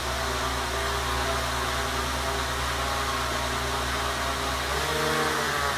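Hexarotor's electric motors and propellers running, a steady whir made of several tones over a hiss. Near the end the tones shift in pitch as the motor speeds change.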